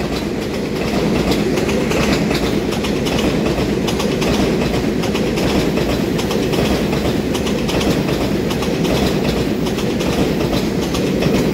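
A twelve-car EMU3000 electric multiple unit rolling past close by: a steady, loud rumble of wheels on rails with a dense run of clicks over the rail joints.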